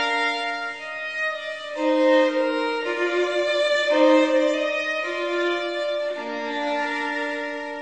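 Background music led by a bowed violin playing a slow melody, with notes changing about once a second over sustained lower notes.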